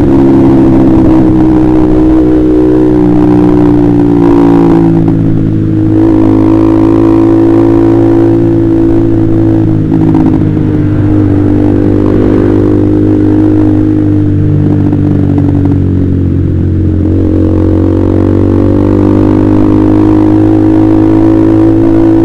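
Honda CBR150R's single-cylinder engine running through a KJ Pro Performance aftermarket exhaust while riding, the revs easing off and climbing back twice.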